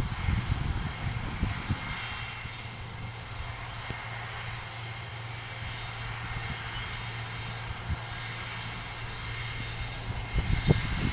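ARTEC F40 self-propelled sprayer running steadily in the distance: an even engine drone with a faint steady high tone over it. Wind buffets the microphone in the first two seconds and again near the end.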